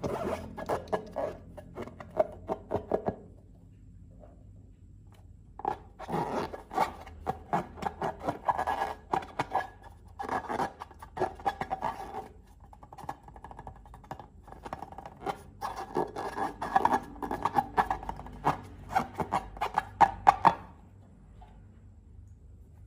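Slime being squeezed and worked by hand, making sticky crackling and popping clicks in three spells with short pauses between.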